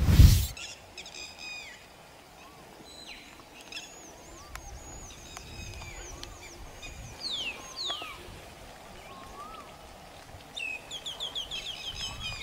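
Birds calling over an open outdoor background: scattered chirps, two quick falling whistles about two-thirds of the way through, and a fast run of repeated chirps near the end. A single sharp crack right at the start is the loudest sound.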